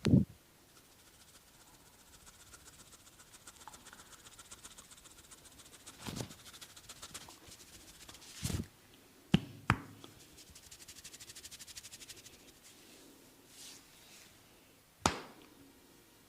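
Hands working a man's head and neck in a barber's massage: a fast, fine rubbing tick runs through the middle, broken by six sharp smacks, the loudest right at the start and a close pair near the middle.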